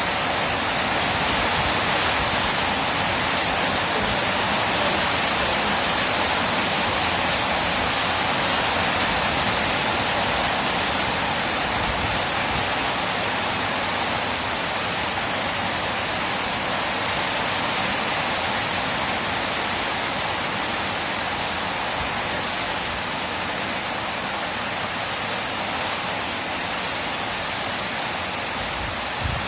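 Heavy rain storm pouring down as a steady, dense hiss, with a brief low knock near the end.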